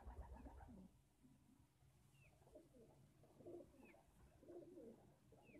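Domestic pigeons cooing softly in several wavering phrases, with three short high falling peeps between the coos.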